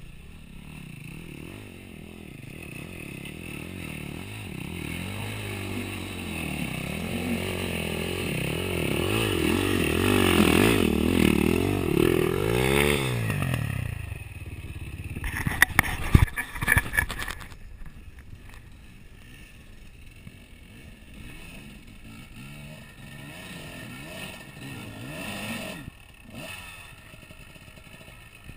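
Dirt bike engine revving in repeated swells, growing louder over the first dozen seconds and then dropping away. A burst of clattering knocks comes around fifteen to seventeen seconds in, then quieter engine revving.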